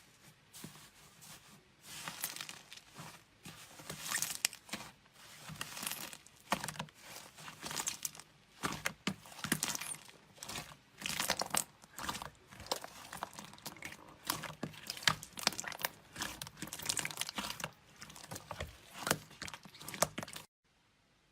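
Slime being squeezed and stretched by hand close to the microphone, with irregular crackling and popping that swells every second or so. It cuts off suddenly near the end.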